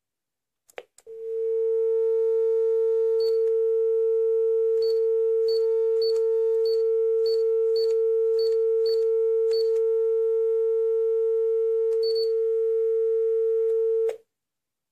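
Sanyo AD400 landline phone's speakerphone switched on with a click, then a steady dial tone from its loudspeaker, with about ten faint clicks as number keys are pressed. The tone cuts off suddenly when the speakerphone is switched off.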